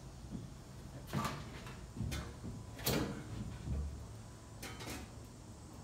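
Irregular knocks and clunks, about five over a few seconds, as a large window frame is worked into its opening from scaffolding.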